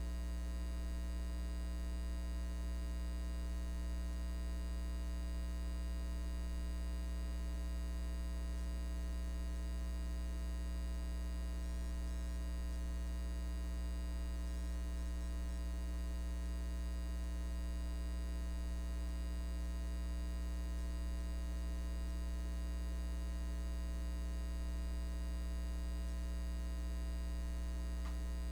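Steady electrical mains hum: a low drone with a buzz of fainter higher overtones, unchanging in pitch and level.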